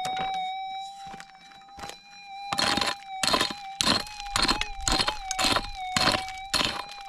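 Metal detector's steady threshold tone humming without a break, joined from about two and a half seconds in by a prospecting pick striking into stony dirt, close to two blows a second, as the prospector digs out a target.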